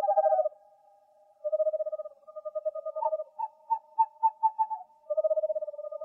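Owl calls: rapid, evenly pulsed trills on a steady pitch, in bursts of about a second each, with a higher pulsed trill alongside them in the middle.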